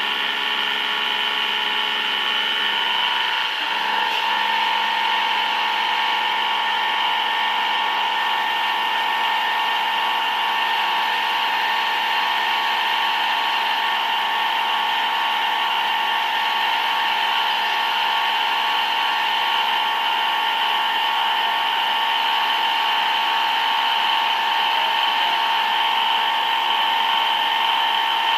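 A CNC machine tool running with a steady high-pitched whine, which shifts slightly about three and a half seconds in.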